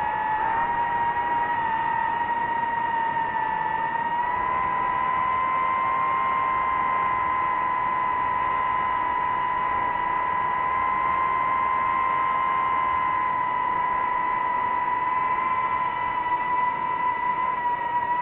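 DJI FPV drone's motors and propellers whining steadily in flight, the pitch stepping up slightly about four seconds in.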